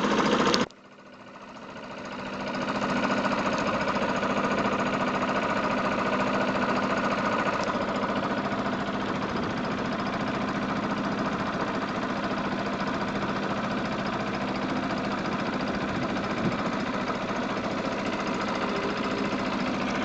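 Small wooden boat's engine running steadily under way. The sound drops out sharply just under a second in and fades back up over the next two seconds.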